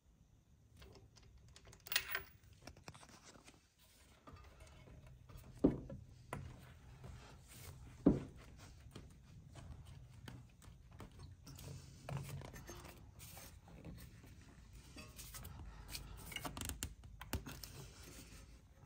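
Hand tools and engine parts being handled at a car's thermostat housing and upper radiator hose. Three sharp metallic clinks come about two, six and eight seconds in, with lighter rubbing and tapping between them, over a low steady hum.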